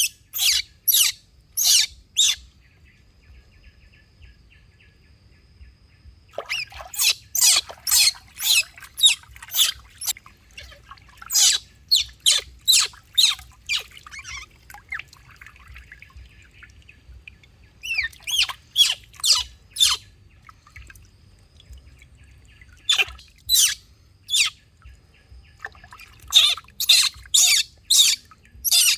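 Outdoor animal calls: a rapid series of sharp, high-pitched chirps, about three a second, coming in bouts of a few seconds with pauses between.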